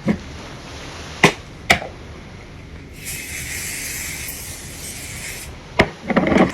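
A few sharp clicks, then an aerosol spray can hissing steadily for about two and a half seconds and cutting off suddenly. Near the end there is one more click and a short vocal sound.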